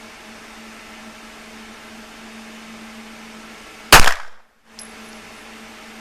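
A single handgun shot about four seconds in, over a steady background hum.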